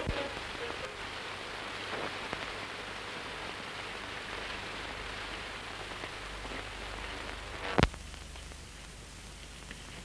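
Steady hiss and crackle of an old optical film soundtrack, with no dialogue or music. A single sharp pop comes near the eight-second mark, after which the hiss is quieter.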